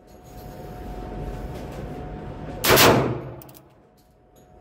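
A single shot from a Heritage Barkeep single-action revolver, about two and a half seconds in, ringing out briefly in an indoor range booth over a faint steady hum.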